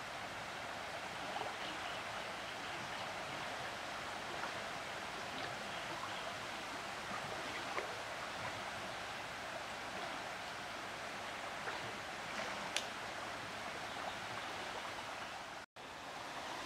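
Steady rushing of a flowing river, with a few faint ticks and a brief dropout near the end.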